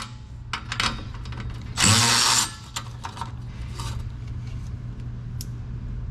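Cordless powered box ratchet (Milwaukee M12 Fuel Insider) run in one short burst about two seconds in, its motor rising in pitch as it spins an exhaust flange bolt loose. Light metallic clicks and clinks of tools sound around it, over a steady low hum.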